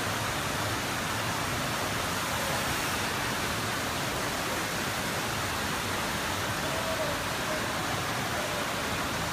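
Steady rushing of pumped water streaming up the ramp of a surf-simulator wave machine.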